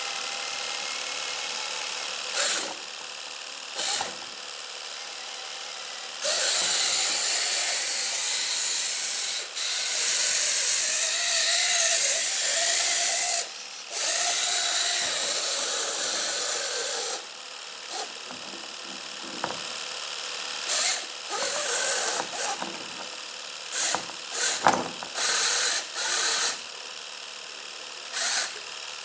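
A small motor running in repeated bursts: three long runs of a few seconds each in the middle, then a series of short spurts near the end, over a steady background hum.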